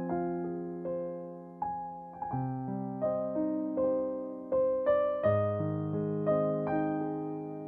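Background music: a gentle piano melody with single notes struck and left to ring over changing chords.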